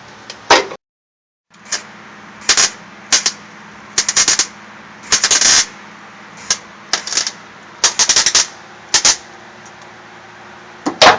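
Millermatic 211 MIG welder plug-welding a steel floor patch panel in: about a dozen short crackling bursts, each under half a second, one per spot weld, over a steady hum.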